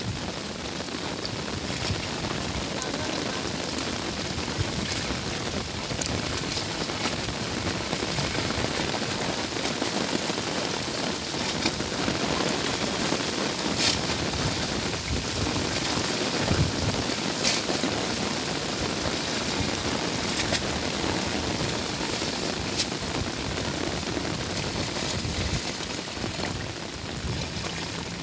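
Water splashing and sloshing as someone wades waist-deep through a flooded canal and works a fishing net by hand, over a steady hiss.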